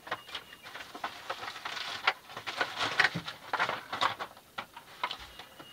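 Package being handled: irregular rustling and light clicks, busiest in the middle.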